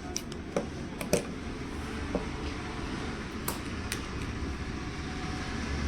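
A handful of short, sharp clicks and taps, spread unevenly, from a Nokia mobile phone's small parts being handled and fitted together during its reassembly, over a steady background hum.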